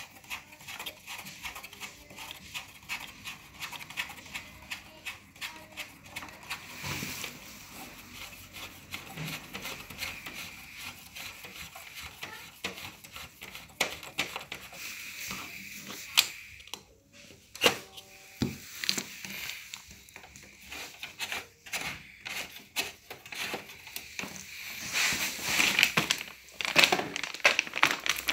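Handling noise on a plastic slide projector: scattered small clicks, taps and knocks as the lens and adjustable feet are handled. Near the end, louder crinkling of a plastic bag.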